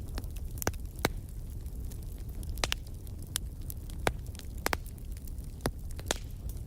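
Fire burning in a fireplace: sharp crackles and pops at irregular moments, about ten of them, over a steady low rumble from the flames.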